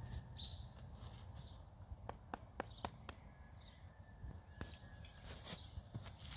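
Chestnut horse walking on grass: soft hoof falls and a handful of faint sharp clicks, over a low steady rumble.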